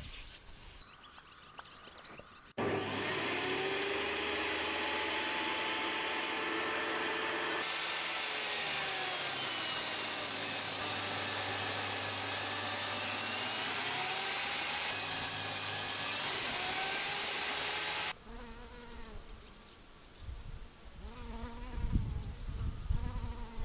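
Electric saw cutting wooden boards. It starts abruptly a few seconds in and runs at a steady level, its motor pitch sagging and recovering as the blade works through the wood, then stops abruptly about two-thirds of the way through.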